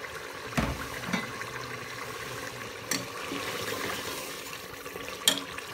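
Goat meat curry bubbling steadily in the pot as the last of its water cooks off before the oil separates, with a few sharp clicks.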